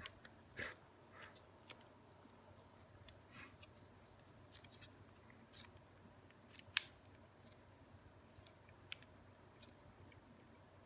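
Ragdoll cat licking a Ciao Churu lickable paste treat from its tube, heard as faint, irregular wet licking and little mouth clicks. One sharper click comes about two-thirds of the way through.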